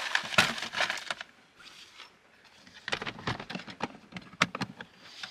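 Small objects being handled, clicking and rattling in two bursts: a cluster in the first second and another about three seconds in.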